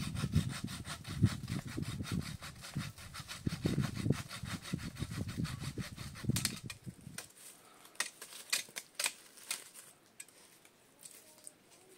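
A saw cutting through a tree branch in quick, even back-and-forth strokes, which stop about seven seconds in. After that, a few scattered snaps and rustles of branches being handled.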